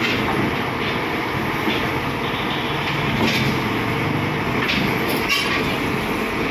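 Hyundai crawler excavator's diesel engine running under load while its steel tracks clank and grind as it crawls down off a flatbed trailer, with a few sharp squeaks and clanks from the tracks and trailer deck.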